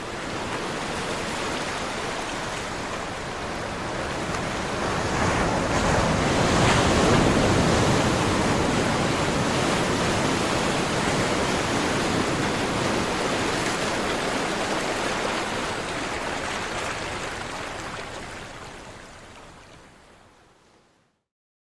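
Sea surf washing ashore: a broad, even rush of breaking water that swells to its loudest about a third of the way in, then slowly dies away near the end.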